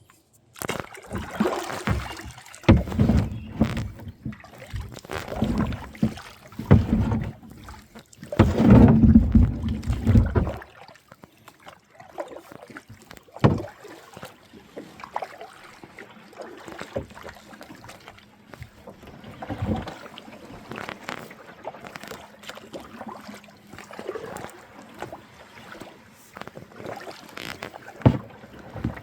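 Kayak being handled and floated on a river: heavy irregular bumps and thuds on the hull and water sloshing for about the first ten seconds, then quieter water noise with occasional knocks against the kayak.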